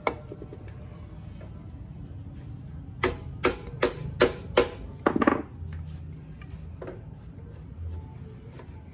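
Five sharp metal knocks about 0.4 s apart, then a short scrape, from work at a Yamaha F1ZR's lower fork triple clamp with a wooden-handled screwdriver wedged into it.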